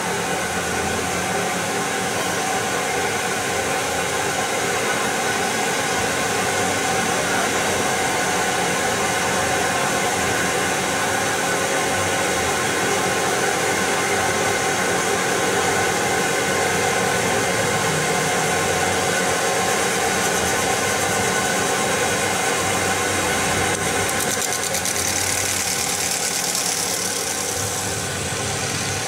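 CNC metal spinning machine running steadily, its spindle turning a sheet-metal fan shell on the mandrel while the forming roller works it: a dense mechanical hum with a steady whine. Near the end a brighter hiss comes in for a few seconds and fades.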